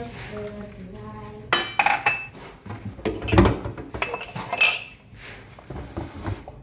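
Kitchenware clattering as a pan, mug and basin are handled: a run of sharp knocks and clinks from about a second and a half to five seconds in, the loudest near the middle, with one short ring.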